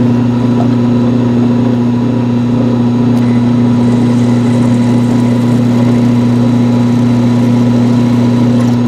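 Craftex CX-series mill-drill running steadily with a low, even hum while a twist drill bores a pilot hole through a mild-steel ring; it is cutting cleanly.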